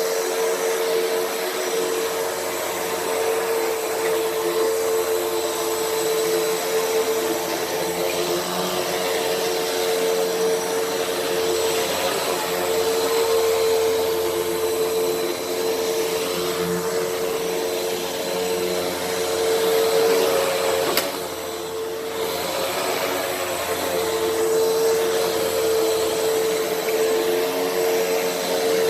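Hoover WindTunnel upright vacuum cleaner running steadily as it is pushed over a dirty rug, its motor holding a steady whine. About 21 seconds in there is a click and the sound dips briefly for about a second.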